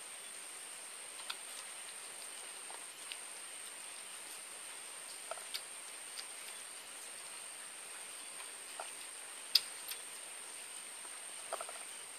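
Kitten licking and lapping wet food from a ceramic bowl: scattered small wet clicks and ticks, with one sharper click about two-thirds of the way in.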